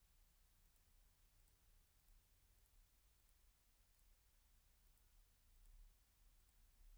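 Faint computer mouse button clicks, about nine spread through the stretch, each a quick press-and-release pair, over a low steady hum.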